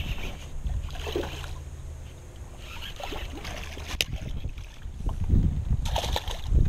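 A hooked bass being reeled in on a baitcasting reel, with a single sharp click about four seconds in. Near the end the fish splashes and thrashes at the surface, the loudest part.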